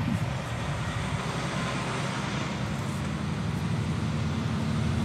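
Road vehicle engine running steadily with road noise, heard from inside the cab while driving.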